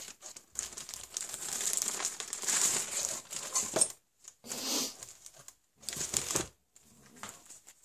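Plastic bag crinkling as it is pulled out of a cardboard box and handled, in several bursts with short pauses between.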